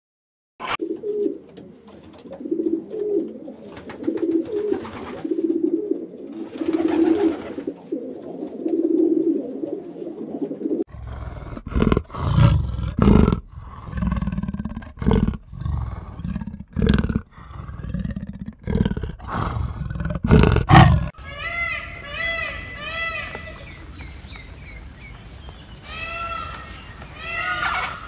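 Pigeons cooing, a rhythmic run of low coos for about the first ten seconds. Then a cheetah gives a series of short, loud, low calls. Near the end come quick, repeated bird calls over a faint steady high tone.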